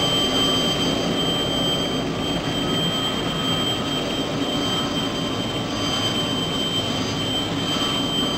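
Helicopter turbine engines and rotor running steadily on the ground: a rushing engine noise with a constant high-pitched whine.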